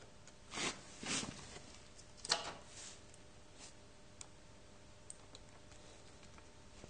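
Small metal clicks and rattles from a screw-type hose clamp and a socket being handled on the brass hose fittings of a wine-transfer pump. The handling is busiest in the first two and a half seconds, then thins to a few light ticks.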